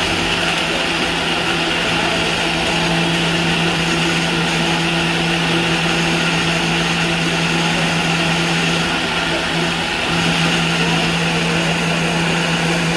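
Electric blender motor running steadily at full speed, blending frozen piña coladas.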